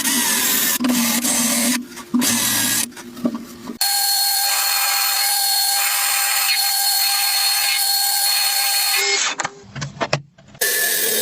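Power tool running loudly: an uneven run in the first few seconds, then a steady whine with a constant tone for about five seconds, cutting off about nine seconds in. Short knocks and clinks follow.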